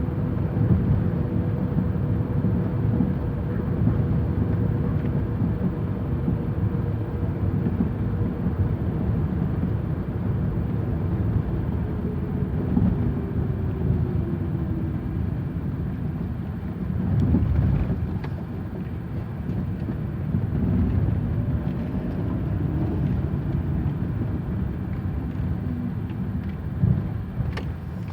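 Chevrolet Aveo driving over a rough road: steady road and running noise, with a couple of short sharp knocks from the front suspension, about two-thirds of the way through and near the end. The owner traces the knock to the new front strut top mount.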